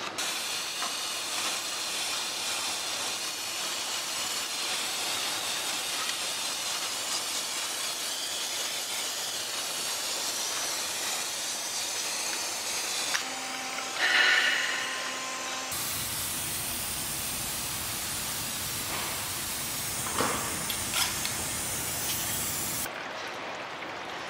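Aerosol spray hissing as cleaner is sprayed onto an automatic transmission's exposed valve body, in two long, steady stretches. Between them, about halfway through, there is a short, louder noise.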